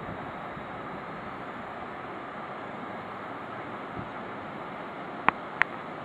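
Water rushing at a canal lock, a steady even hiss, with two sharp clicks close together near the end.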